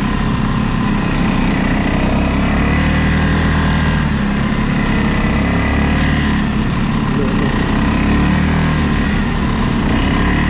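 ATV engine running at a steady, even pitch.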